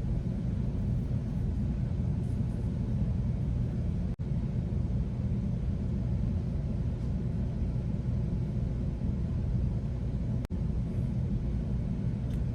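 Steady low rumble of an air-conditioning unit running, with faint steady hum tones in it. The sound cuts out for an instant twice, about four seconds in and near the end.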